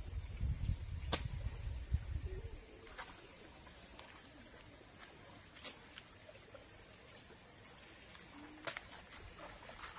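Quiet rural outdoor ambience. A low rumble on the microphone fills the first couple of seconds, then it settles to a steady high hiss, with a few sharp clicks and two short, low bird calls.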